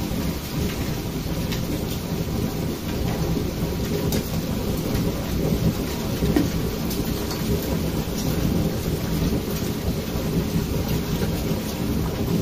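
Torrential storm rain pouring down, a dense steady hiss with a low rumble underneath.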